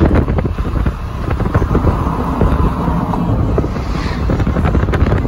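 Steady rush of wind and road noise in a car driving at speed, strongest in the low end.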